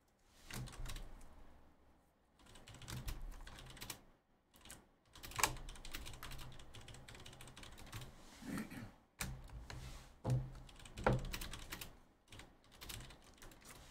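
Typing on a computer keyboard: an irregular run of key clicks, a few of them louder.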